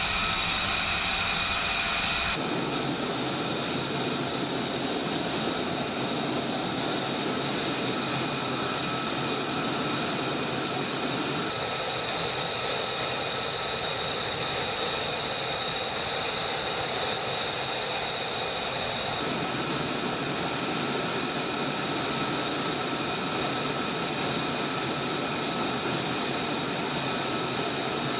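Jet aircraft engine running with a steady high whine over a broad rush. The low rumble changes abruptly a few times, as if from one clip to another.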